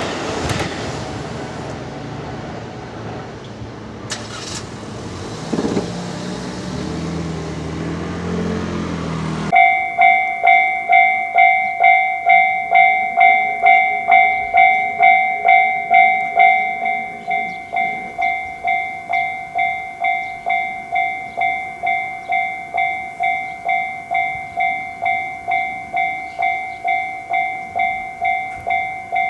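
A train running past on the rails, then, about a third of the way in, a Japanese level-crossing alarm starts suddenly and rings steadily at about two strokes a second, the familiar "kan kan" crossing bell. The bell drops somewhat in loudness a little past halfway.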